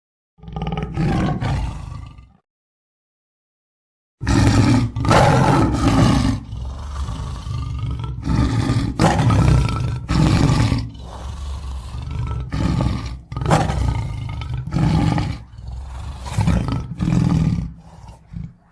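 Lion roaring: one short roar, then after a pause a long bout of deep, rough roars and grunts repeated about once a second, growing weaker near the end.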